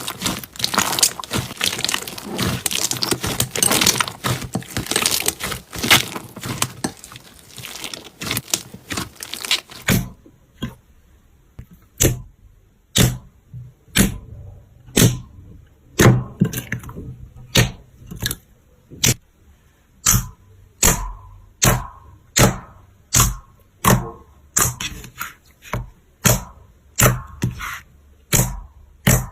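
Slime being handled: dense crackling for about the first ten seconds, then a run of sharp clicks and pops, about one a second, coming faster near the end.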